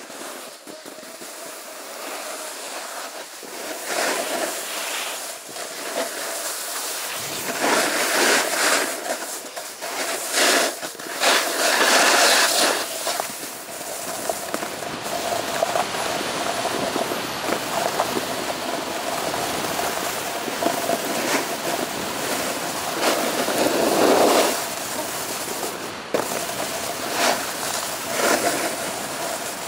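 Snowboard sliding down a hard, thinly covered ski slope: a continuous scraping hiss of the board on the snow, swelling into louder scrapes several times.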